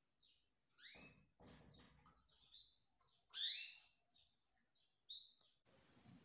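Canaries chirping: a string of short, high, sharp calls, a few much louder than the rest, with a soft low rustle a second or two in.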